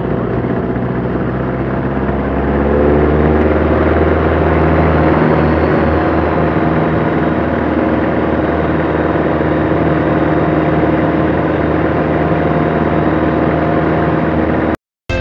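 Savage Outback Shock light sport taildragger's engine and propeller, heard from inside the cockpit at takeoff power during the takeoff run and climb-out. It is a steady drone that grows louder about two and a half seconds in, and it cuts off abruptly just before the end.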